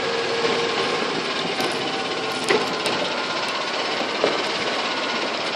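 Golf cart driving across grass: steady running noise with light rattles and a few clicks from the cart.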